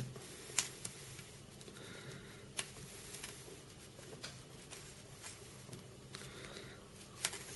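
Faint handling noise from fingers working small carp-rig tackle, pushing rubber beads onto a plastic anti-tangle tube. A few sharp, scattered clicks sound over a low steady hum.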